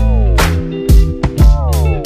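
Background music: electric guitar chords that slide down in pitch twice, over a bass line and a kick drum on the beat.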